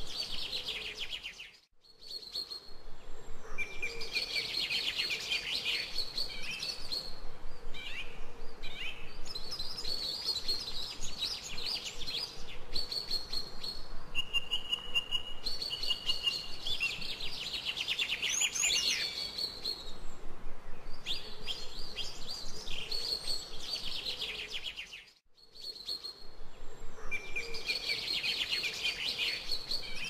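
Songbirds chirping and trilling in a busy chorus, with a short held whistled note in the middle. The chorus fades out briefly twice, about two seconds in and again about 25 seconds in.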